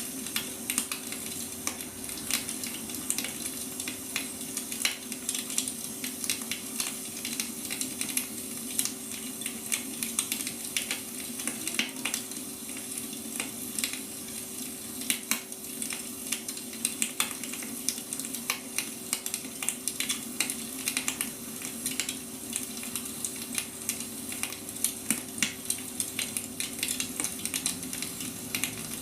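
Wood fire burning, crackling with many small irregular pops and snaps over a steady low hum.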